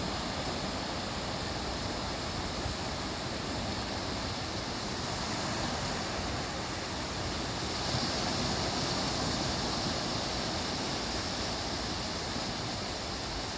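Small ocean waves breaking and washing up a sandy beach as a steady surf wash, swelling a little about eight seconds in as a wave comes in.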